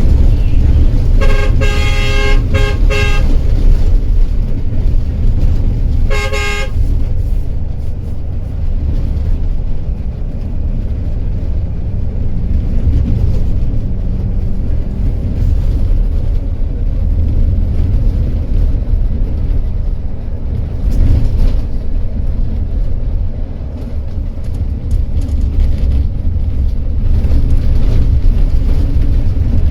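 Intercity coach driving over a rough, broken highway, a steady low rumble of engine and road. A vehicle horn honks about a second in, held for roughly two seconds, and briefly again about six seconds in.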